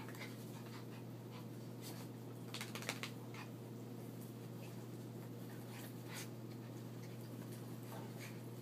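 Small dogs play-wrestling on carpet: scattered light scuffling clicks, with a brief flurry of louder ones about three seconds in, over a steady low hum.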